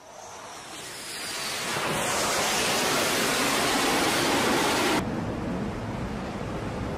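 Jet aircraft engine roar on a carrier flight deck, building over about two seconds to a loud rushing noise that cuts off abruptly about five seconds in, leaving a quieter rush of wind and sea.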